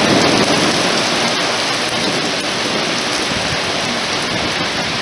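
Heavy rain pouring steadily, a dense even hiss of rain hitting pavement and parked cars.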